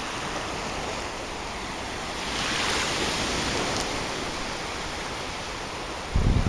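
Shallow sea waves washing in over sand, a steady hiss that swells as a wave rushes up about two seconds in. Wind buffets the microphone briefly near the end.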